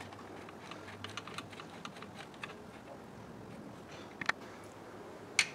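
Light, irregular metal clicking of a hand tool turning a screw, with two sharper clicks near the end.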